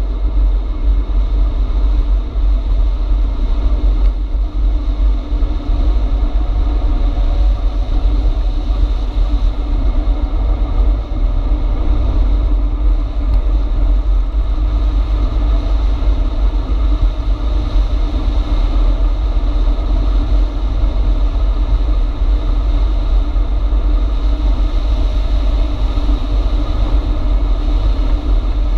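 Steady wind buffeting on the microphone of a handlebar-mounted camera as an e-bike rides along a paved road, a continuous low rumble with road noise underneath.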